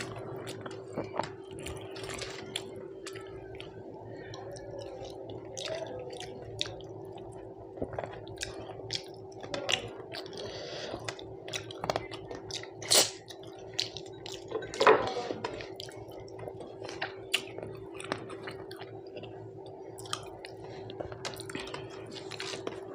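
Close-miked chewing and wet mouth sounds of someone eating a Bengali rice-and-fish lunch, with many small smacks and clicks. There are two louder sharp clicks about 13 and 15 seconds in, and a steady hum runs underneath.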